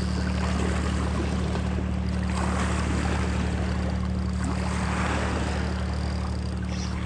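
A boat motor runs steadily with a low hum, under a rushing noise that swells twice.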